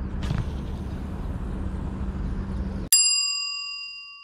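Steady outdoor background noise with a low hum and a brief whoosh near the start. Then an abrupt cut to dead silence and a single bell-like ding, loud at first and fading out over about a second and a half: a transition sound effect added in editing.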